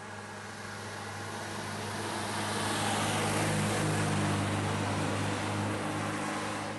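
A vintage car's engine running steadily as the car approaches up a bend, passes close by about four seconds in and moves away, getting louder and then fading.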